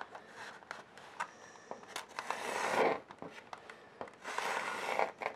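Faint scraping of a thin paintbrush stroking paint onto canvas along the rim of a plate held as a guide, with a few light clicks.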